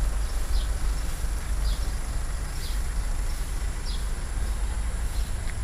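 Outdoor ambience: a steady low rumble with a thin, steady high drone above it and a short falling chirp about once a second.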